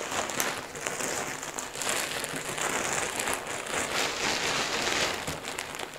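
Plastic bags crinkling and loose pasteurized straw pellets rustling as the substrate is tipped from one bag into another: a continuous rustle full of small crackles.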